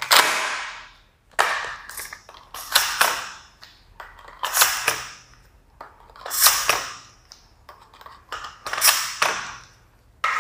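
XM1014 Benelli M4 toy gel blaster shotgun being loaded with its shells: a series of sharp plastic clicks and clacks, coming in small clusters about every two seconds.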